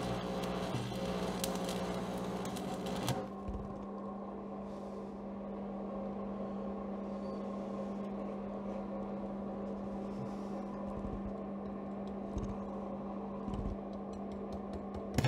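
Electric arc welding crackling and sputtering for the first three seconds or so, then cutting off. After that the welding machine's steady hum carries on, with a few soft knocks, until the arc crackles again right at the end.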